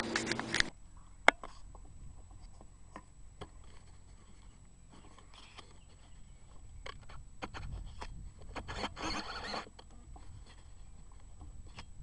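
Faint handling noise from the rifle and its scope camera being moved: scraping and scattered clicks, with one sharp click about a second in and a longer rustle near nine seconds.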